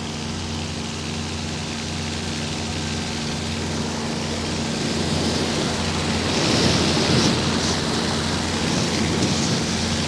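Propeller airplane's engines droning steadily in flight, with a rush of air noise that grows louder about halfway through.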